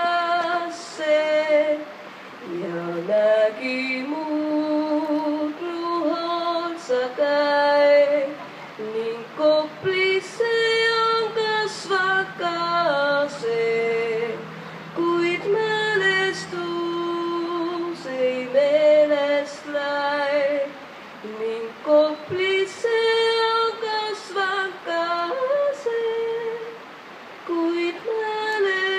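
A woman's solo voice singing an Estonian folk song in sung phrases a few seconds long, with short breaks for breath between them.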